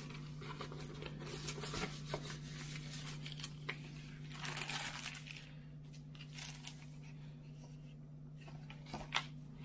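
Paper rustling and crinkling as a thin translucent sheet and the pages of a hardcover book are handled and turned, with a fuller rustle about four to five seconds in and a sharp tap near the end.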